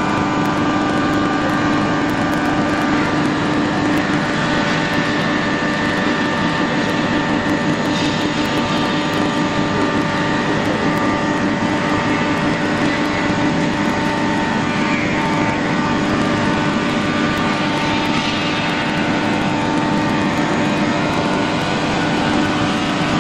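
CNC wood router running steadily: a loud, constant machine whine with several fixed pitches over a noisy hiss, unbroken throughout.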